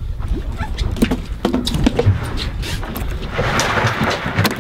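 Handling noise on a boat deck: scattered knocks and taps as a fish is laid and pressed on a measuring board on a fibreglass cooler lid, over a steady low rumble. A brief hiss comes about three and a half seconds in.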